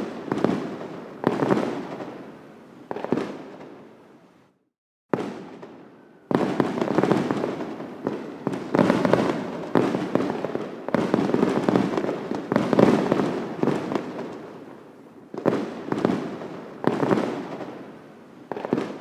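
Fireworks exploding: a string of sharp bangs, each fading away, and the sound cuts out completely for about half a second some four and a half seconds in. A dense run of overlapping bursts follows for several seconds, then a few separate bangs near the end.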